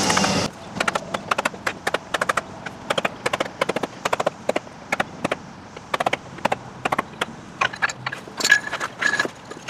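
Mallet tapping a wooden stick to drive a vinyl Trim-A-Slab expansion-joint strip down into the gap between a house foundation and the paving: quick, sharp knocks in uneven runs, several a second. A louder steady sound cuts off about half a second in.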